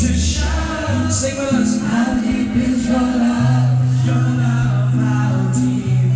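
Male vocal group singing pop in harmony over a backing track with held bass notes and cymbal hits.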